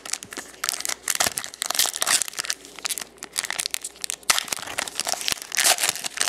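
Plastic wrapper of a trading-card pack crinkling as it is handled and torn open, an irregular run of crackles and rustles.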